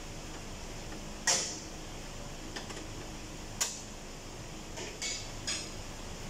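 Plastic front bumper cover of a Hyundai Sonata being pried and pulled off, its retaining clips giving way in several sharp snaps: the loudest a little over a second in, another midway, and a pair near the end.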